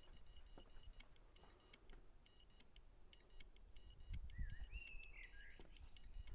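Mostly quiet outdoor ambience: a few faint clicks and handling noises from the net being clipped to its rods, and a short bird whistle, rising and falling, about four to five seconds in.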